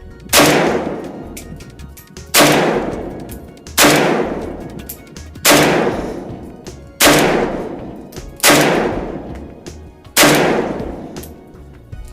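Seven rifle shots from a Zastava O-PAP, an AK-pattern semi-automatic in 7.62×39mm, fired at a steady pace about a second and a half apart, each ringing out and fading before the next. The rifle chambers a round after every shot without jamming. Faint background music plays underneath.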